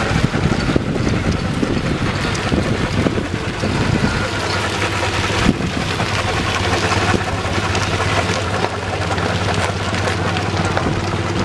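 Miniature steam traction engines driving past at close range, their spoked iron wheels crunching over loose gravel, with a steady low hum from about four seconds in. Wind buffets the microphone.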